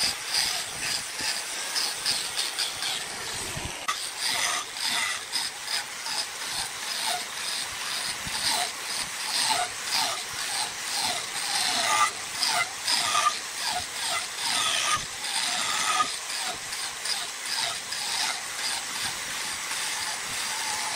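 Wood being turned on a lathe: a turning tool cutting into the spinning wood, giving an irregular, rasping scrape made of many quick strokes. A low rumble underneath drops away about four seconds in.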